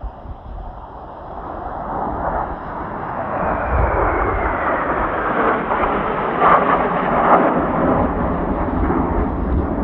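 Blue Impulse Kawasaki T-4 jet aircraft flying past, their jet roar swelling steadily louder, with a whine that falls in pitch a few seconds in. Strong wind buffets the microphone with a low rumble.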